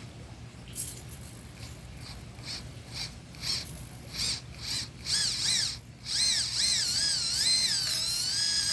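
Tiny 1408-size brushless motor and gear drivetrain of an Axial SCX24 RC crawler whining. It comes in short throttle blips at first, then about five seconds in it runs continuously, its pitch rising and falling as the throttle is worked.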